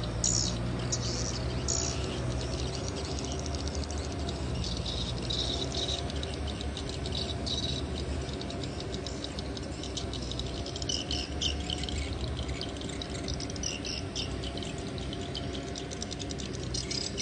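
Kubota M6040 tractor's diesel engine running at a steady speed, with high chirping over it.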